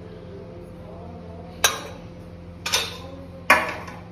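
A steel spoon clinking against kitchen dishes three times, about a second apart, as red chili powder is added to a marinade. A steady low hum runs underneath.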